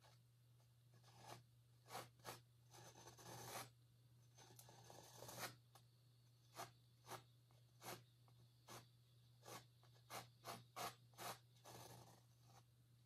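Faint scraping of a palette knife against an oil-painted canvas: a series of quick strokes with a few longer drawn swipes among them, over a steady low hum.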